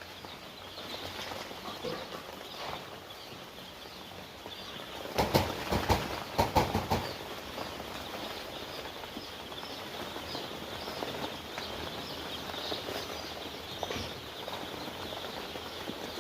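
A brood of young chicks peeping steadily with many overlapping high chirps. From about five to seven seconds in there is a short burst of loud rustling and knocking.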